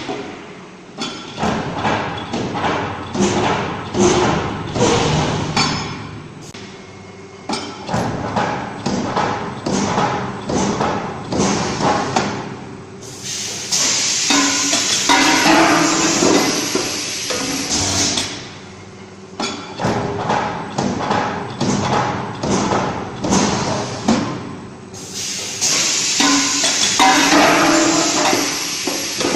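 Refractory ceramic ball molding press running: a quick, uneven series of metal knocks and clanks, broken twice by several seconds of louder, dense mechanical noise as the machine works through its cycle.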